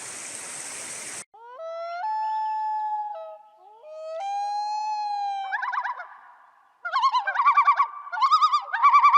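Steady rushing of a river that cuts off suddenly about a second in. It is followed by a bird's calls: long drawn-out notes that slide up and hold, then from about halfway a fast warbling trill repeated several times.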